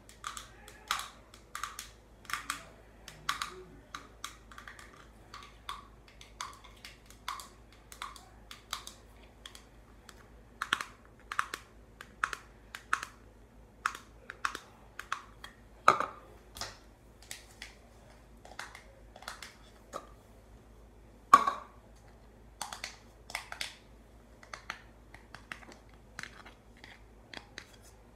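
Slime being squished and pressed by hand, making irregular sticky clicks and small air-bubble pops. Two of the pops are louder, one just past the middle and one about three-quarters through.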